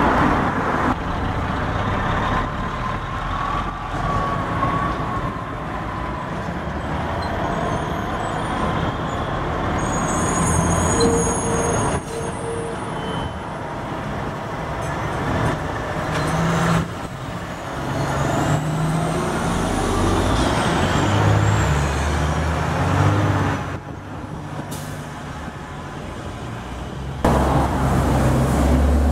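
Diesel semi-trucks pulling belly-dump gravel trailers driving past in street traffic, engines running. The sound changes abruptly several times.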